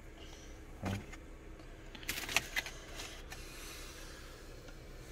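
Plastic snack wrapper handled and crinkled by hand, a burst of crackling with a few sharp clicks about two seconds in, after a brief low sound about a second in.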